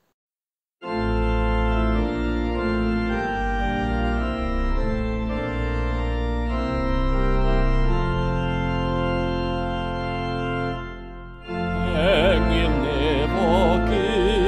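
Organ playing the introduction to a Welsh hymn in held, changing chords, starting about a second in; it breaks off briefly near 11 seconds, then comes back with a singer with a wide vibrato joining it on the hymn.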